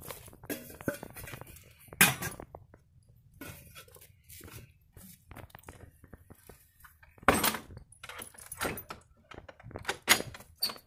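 Sharp knocks and metallic clinks of handled metal hardware, with quieter rustling between them: one loud knock about two seconds in, then a cluster of knocks and clinks in the last four seconds.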